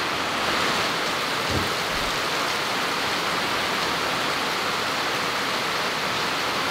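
Heavy rain falling on a sheet-metal building roof during a storm: a steady, even hiss.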